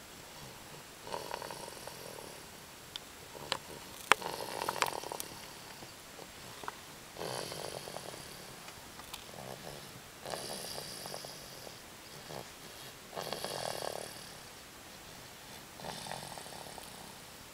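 A sleeping baby snoring, about six snores spaced roughly three seconds apart. A few sharp clicks about four seconds in are the loudest sounds.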